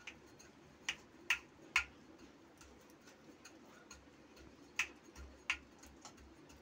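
Sharp, irregular clicks of a steel bowl knocking against a steel plate while it presses a crumbly dry-fruit mixture flat. There is a quick cluster of clicks in the first two seconds and a couple more around five seconds in.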